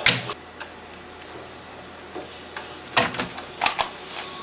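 Rubik's cube being turned fast, its layers clacking in rapid runs: a burst at the start, a pause of about two and a half seconds, then more bursts about three seconds in.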